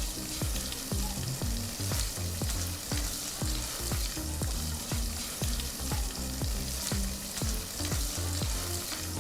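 Garlic and ginger sizzling in hot ghee in a pan as they fry and are stirred, a steady hiss. Background music with a steady beat plays underneath.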